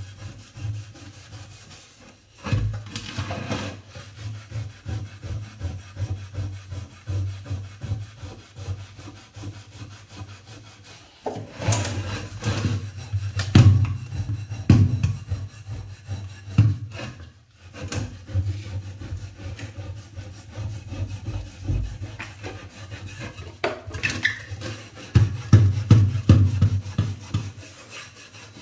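Scrubbing a burnt nonstick frying pan with a scouring pad in a stainless steel sink: rapid back-and-forth rasping strokes, gritty with baking soda, scouring off burnt-on residue. The strokes come in runs, louder for a few seconds at a time, with brief pauses between.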